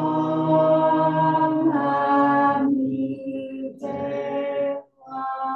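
Small group of voices chanting a Buddhist chant in unison on long held notes. A long phrase with a pitch change partway is followed by a short breath pause, then shorter phrases.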